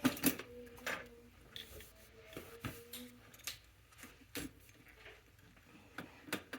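Scattered clicks, clinks and knocks of hand tools and metal bike parts being handled.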